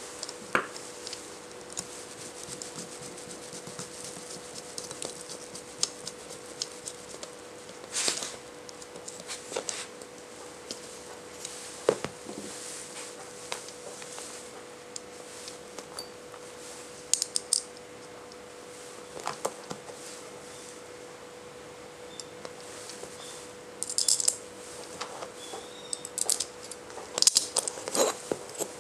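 Aluminium plates and small steel screws of a handmade metal rubber band gun clicking and clinking as they are handled and fitted together, in scattered taps with a few quick clusters. A faint steady hum runs underneath.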